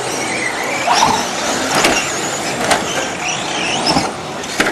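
Radio-controlled short course trucks racing, their electric motors whining high and rising and falling in pitch as they accelerate and slow. Several sharp knocks sound through it.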